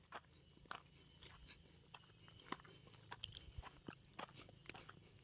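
Faint, irregular crunching footsteps on a dry dirt path strewn with dry leaves, close to the microphone.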